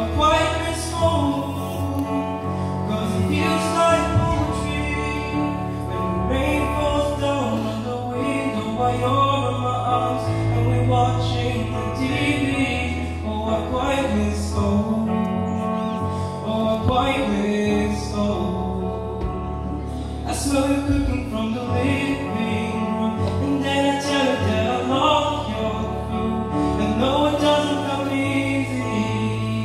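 A young man singing a pop ballad through a microphone and PA, accompanied by chords on a digital piano.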